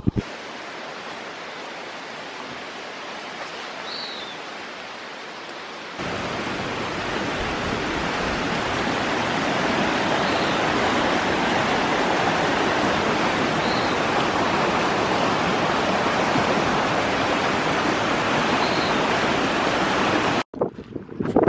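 Steady rushing of flowing water, like a stream or small waterfall, louder after a cut about six seconds in. A few short, faint high chirps come through over it.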